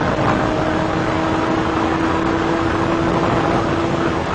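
Police cruiser driving flat out at about 120 mph, heard from inside the car: loud, steady road, wind and engine noise, with a steady tone running under it that stops near the end.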